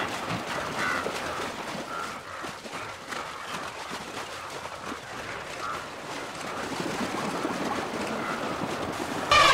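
Wildebeest and zebras splashing through a river in a mass crossing: a steady rush of churning water.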